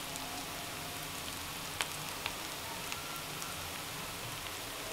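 Sliced onions frying in oil in a pan: a steady sizzling hiss with a few sharp crackles.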